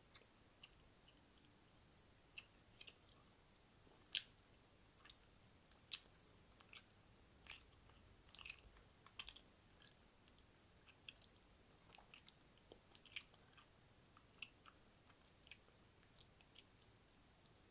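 Wet mouth sounds close to a microphone: soft, irregular clicks and smacks of tongue, lips and saliva, scattered unevenly with a few louder ones, the loudest about four seconds in.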